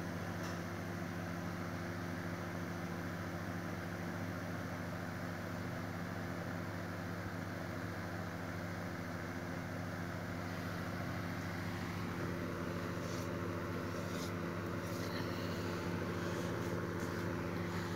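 A steady low mechanical hum, holding a few even tones, under a haze of background noise.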